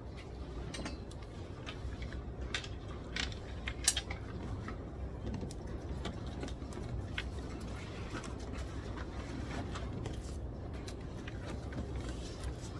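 Study-desk ambience in a library: a steady low room hum with scattered light clicks and taps, the sharpest about four seconds in.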